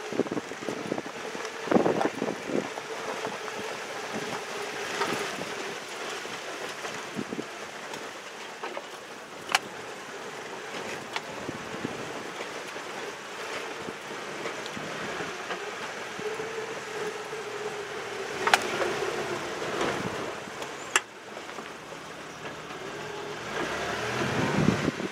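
Toyota vehicle driving slowly over a rough dirt track, heard from inside the cab: a steady engine hum under road and gravel rumble. A few sharp knocks and rattles come as it jolts over bumps.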